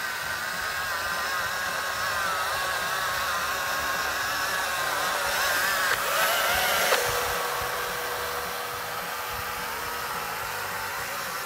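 Homemade robot lawnmower running: its electric motor and gearbox spin a razor-blade cutting disc with a steady, wavering whine. The blades are set too high to cut much grass. About six seconds in the pitch rises and shifts, then settles into a steadier lower tone.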